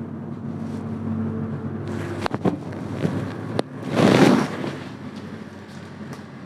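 Chiropractic spinal adjustment on a patient with ankylosing spondylitis, timed to his breath: a few sharp joint clicks two to three and a half seconds in, then a loud breathy rush about four seconds in, over a steady low hum.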